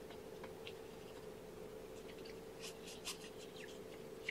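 Faint soft rubbing and scratchy rustling from hands wiping a newborn kitten to make it pee, with a small cluster of scratches about three seconds in, over a steady low hum.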